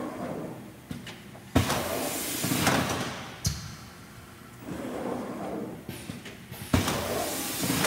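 Automatic carousel screen-printing press cycling. Twice, about five seconds apart, a sharp mechanical clunk is followed by about a second of hissing air from the pneumatic print heads, with a softer click and a lower rushing sound in between.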